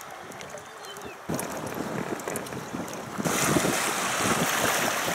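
Wind buffeting the microphone over choppy river water splashing around an inflatable boat, getting louder in two sudden steps, after about a second and again about three seconds in.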